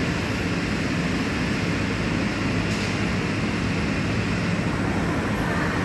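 Taipei Metro Wenhu line rubber-tyred train, heard as a steady, even rumble and hiss with a faint low hum underneath.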